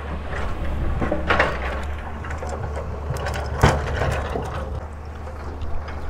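Handling noise of a fishing rod and spinning reel being set up: scattered clicks and rustles with two louder knocks, over a steady low rumble.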